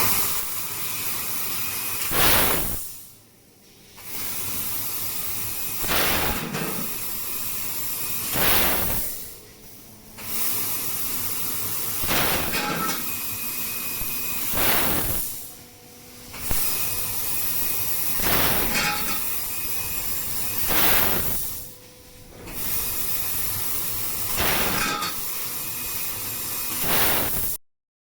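CNC tube laser cutting machine hissing with its cutting-gas jet while cutting tube, repeating in cycles: the hiss swells, stops for about a second, then starts again, roughly every six seconds. The sound cuts off suddenly near the end.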